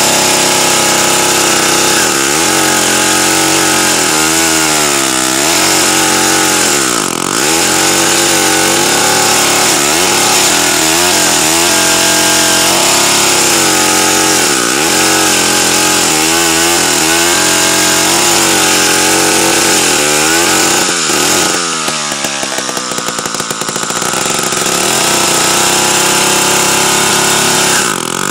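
David Bradley 360 dual-bar chainsaw running hard, its engine pitch sagging and recovering again and again, typical of the saw loading down in a cut and then freeing up.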